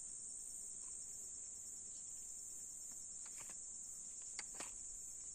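Insects chirring steadily with a high-pitched hiss, and a few light clicks about three and a half to four and a half seconds in as a fishing rod and reel are set into a rod holder.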